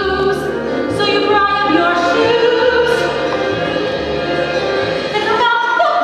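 A solo female voice singing a musical-theatre number over low instrumental accompaniment. The accompaniment drops out about five and a half seconds in.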